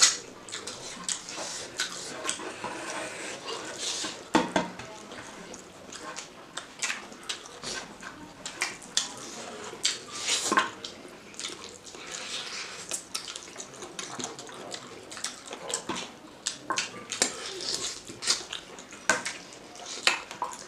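Close-miked eating by hand: wet chewing and lip-smacking on chicken curry and rice, with many short sharp clicks and fingers scraping rice on the plate.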